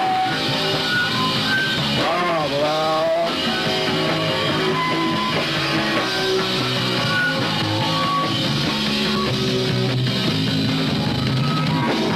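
Loud punk rock music, a band with electric guitar playing steadily, with a wavering, sliding note about two seconds in.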